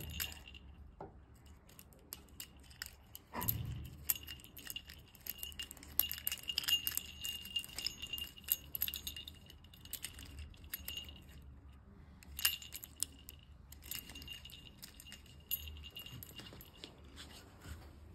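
Metal split rings and small collar fittings clinking and jangling as they are worked by hand onto a dog collar's AirTag holder, in many small scattered clicks with a faint ringing. A louder handling thump comes about three and a half seconds in.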